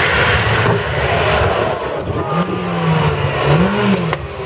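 Rally car engine revving hard on a street stage, its note rising and falling with the throttle as it runs between corners. A single sharp click sounds near the end.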